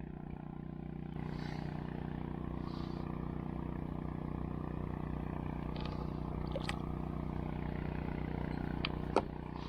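A steady motor hum, growing slightly louder about a second in, with a few faint clicks.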